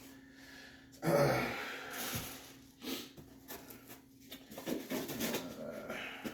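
Irregular rustling and handling noises from unboxing packaging, the loudest burst about a second in and more near the end, over a faint steady hum.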